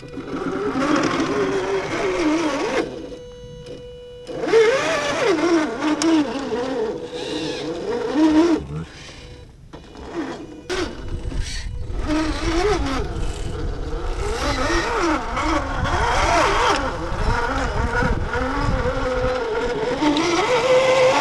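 Electric motor and gears of an RC scale Jeep Cherokee XJ crawler whining, the pitch wavering up and down as the throttle changes. The sound is broken by a few sudden cuts.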